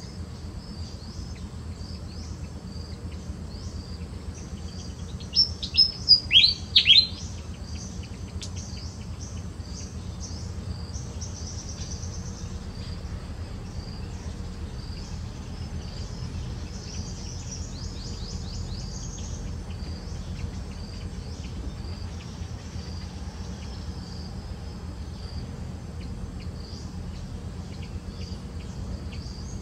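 Insects chirping steadily, over a low steady rumble. A little over five seconds in comes a quick run of about five loud, high calls, each sliding down in pitch, from an unseen bird or animal.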